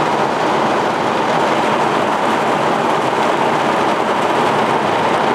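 Heavy rain pouring down in a thunderstorm, a steady hiss with no thunderclap heard.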